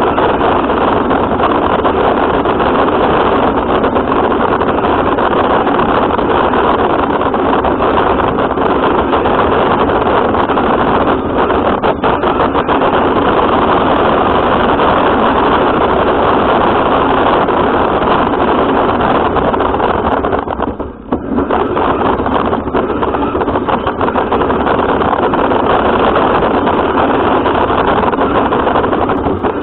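Radio-controlled car driving, heard through its onboard camera's microphone: a loud, steady noise that dips briefly about two-thirds of the way through.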